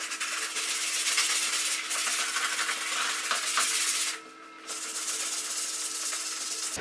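A sponge scrubbing the edge of a car headliner board: a steady dry rubbing and scratching on the fabric and foam, pausing briefly about four seconds in.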